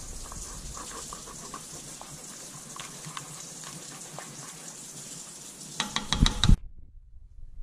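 Gravy simmering and thickening in a cast iron pot as it is stirred with a spoon: a steady bubbling hiss with small pops. About six seconds in, a quick run of sharp knocks.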